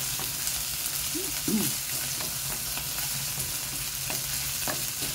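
Chopped chicken and chicken fat with ginger, garlic and onion sizzling steadily in a nonstick frying pan while the fat renders out. A wooden spatula stirs and scrapes continuously against the pan.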